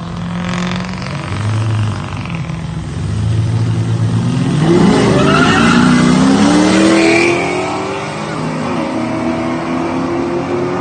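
Drag-race cars launching: engines idle and rumble, then about four seconds in the pitch climbs steeply under hard acceleration, drops once at a gear shift, and climbs again.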